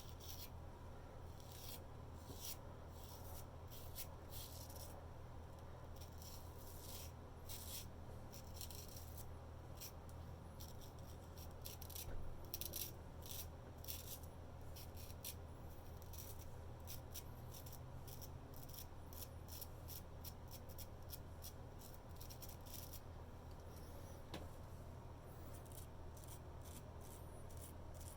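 Straight razor scraping through lathered stubble in short, irregular strokes, over a steady low hum.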